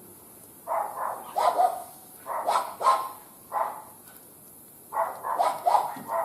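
A dog barking, short barks spaced about a second apart, then a quicker run of barks near the end.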